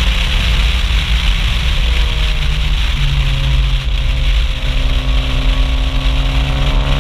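Mitsubishi Lancer Evo IV's turbocharged 2.0-litre inline-four exhaust, loud, heard at the rear spoiler with wind rush over the microphone while driving. The engine note shifts about three seconds in, then climbs slowly.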